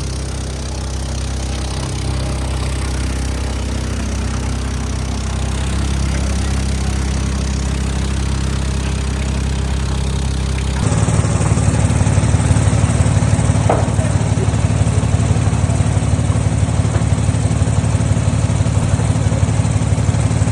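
An engine running steadily at idle, with a low drone; about eleven seconds in it abruptly turns louder with a fast, even pulsing.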